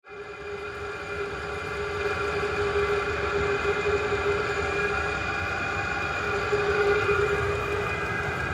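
Vevor diesel air heater running without an exhaust muffler: a steady low combustion rumble under several steady whining tones, rising over the first couple of seconds and then holding level.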